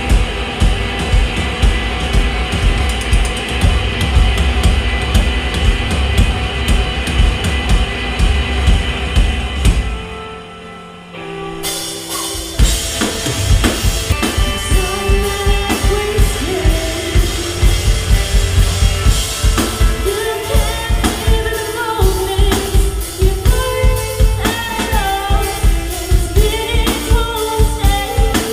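Indie rock band playing live: drum kit with bass drum and snare, guitars and bass, with a sung vocal line. About ten seconds in the music drops away for a couple of seconds, then the band comes back in, with singing clearly on top near the end.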